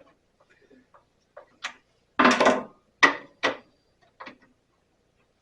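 Short clicks and knocks of the bandsaw's blade-guide parts being worked by hand as the guide is loosened and moved. There is a louder short scraping rattle about two seconds in, followed by three sharp clicks.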